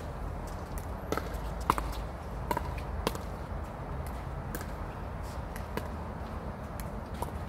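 Pickleballs being hit with paddles and bouncing on the court: an irregular string of sharp pops and taps, several with a short ringing note, the loudest a little under two seconds in, over a steady low rumble.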